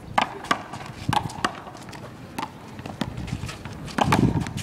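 Small rubber handball being slapped by hand and smacking off the wall and court during a rally: about half a dozen sharp, irregularly spaced smacks, with a low murmur of voices near the end.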